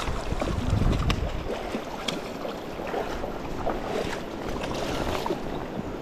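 Shallow, stony river running steadily, with wind buffeting the microphone for about the first second and a half, and a few light clicks.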